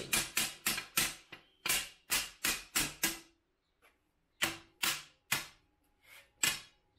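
Hammer blows on a Dormobile roof bunk's metal frame: a quick series of sharp strikes, about three a second, in three bursts with short pauses between.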